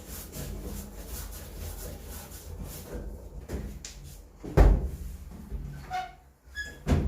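Handling noise from a washing machine installation: small knocks and clatter, with one loud thump about halfway through and a few short high tones near the end.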